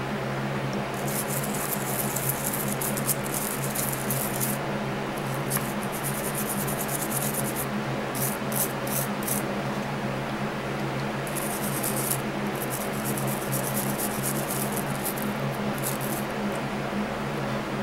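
Toothbrush bristles scrubbing small plastic model-car parts in a bowl of water, in repeated spells of scratchy brushing, over a steady low hum.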